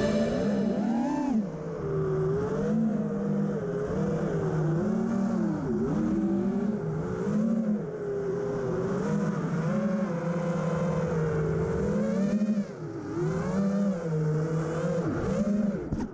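A 5-inch FPV quadcopter's four T-Motor F60 Pro IV 1950kv brushless motors spinning Azure Vanover 5.1-inch propellers, heard from the onboard camera. The buzzing whine rises and falls in pitch again and again as the throttle is worked through a freestyle flight, then cuts off suddenly at the end.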